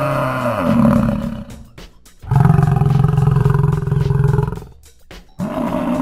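African buffalo bellowing: three long, low calls with short pauses between them. The first drops in pitch as it dies away about a second and a half in, the second fills the middle, and the third starts near the end.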